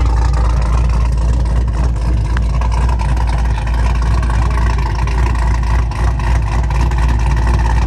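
Car engine idling steadily with a deep, even rumble, not revved.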